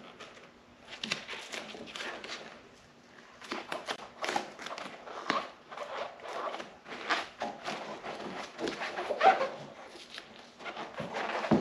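Irregular scuffing, rubbing and tapping of hands pressing sound-deadening foam into place on a snowmobile: a run of short, uneven scrapes and knocks.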